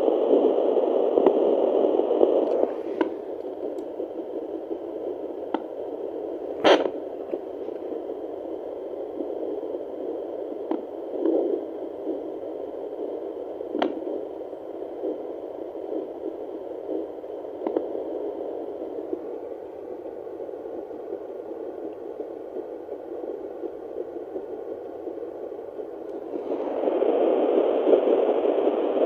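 Home fetal Doppler monitor hissing static through its speaker while searching for the heartbeat. The hiss drops lower a couple of seconds in and rises again near the end. A few scrapes and clicks sound through it, the sharpest about seven seconds in.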